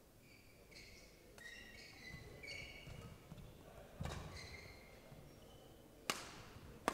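Badminton rally: sharp cracks of rackets striking the shuttlecock, spaced a second or more apart, with the loudest two near the end. Court shoes squeak on the court mat between shots during the first half.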